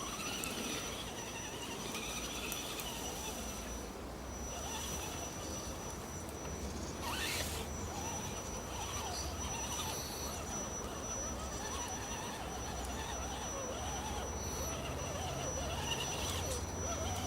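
Small electric motor and gears of an Axial 4x4 RC jeep crawler running off-road, the pitch wavering up and down, with a quick rising whine about seven seconds in.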